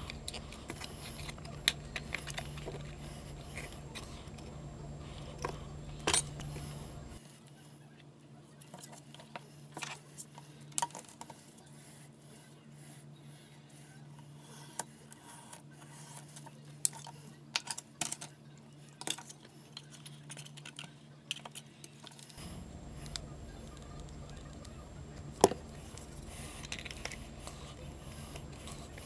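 Gloved hands handling and fitting together the walls of a small white mold box, with scattered small clicks and taps. A steady low hum underneath drops out for about fifteen seconds in the middle.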